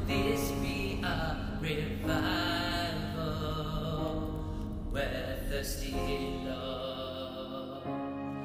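Slow worship music with long held chords that change every few seconds, between sung lines.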